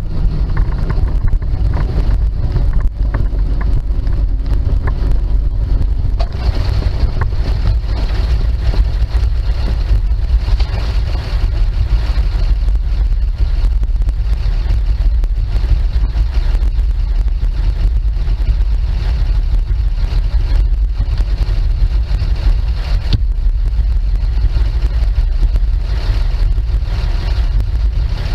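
1948 Dodge 1.5-ton truck's flathead straight-six engine and driveline running under way, heard from inside the cab. The sound stays loud and steady, shifting in character about six seconds in and again a little before the end.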